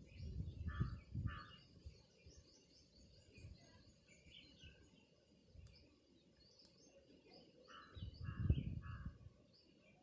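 Crows cawing, two caws about a second in and three more near the end, while small birds chirp faintly throughout. Low rumbling noise on the microphone at the start and near the end.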